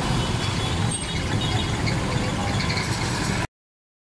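Road traffic in a heavy downpour: vehicle engines running on a flooded street over a steady hiss of rain and water. The sound cuts off abruptly about three and a half seconds in.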